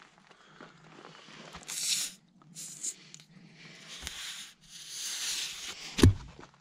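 A T-handle tire plug tool forcing another sticky plug into a sidewall gash already stitched with plugs: several scraping, hissing strokes of the tool working in the rubber, then a sharp knock near the end.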